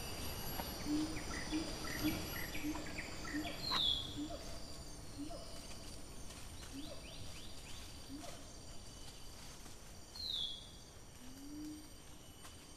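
Tropical forest ambience: a steady drone of insects with high thin tones, under a run of short low calls about two a second that thins out over the first half. Two short falling whistled bird calls come through, one about four seconds in and one near ten seconds.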